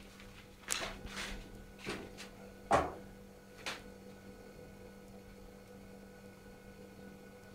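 Light knocks and clatters of a wooden cutting board and knife against an enamel pot as pieces of cut saury are pushed into it, about five in the first four seconds, the loudest nearly three seconds in. After that only a faint steady hum.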